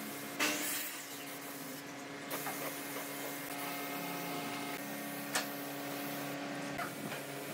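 Gravity-feed air spray gun hissing steadily as it sprays finish onto pine wood, over a steady low hum.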